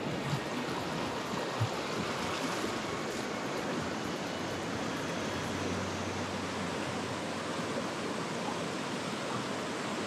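Small mountain stream rushing and splashing over rocks and little cascades in a steady, even rush of water.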